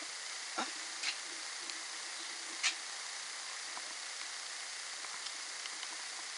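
Steady hiss with three short crunches, the last the loudest, from feet pushing through deep snow.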